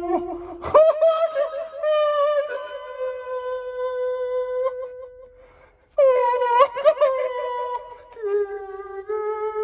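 A man singing slow, long held notes into a handheld karaoke microphone, with a short break about five and a half seconds in before the next phrase.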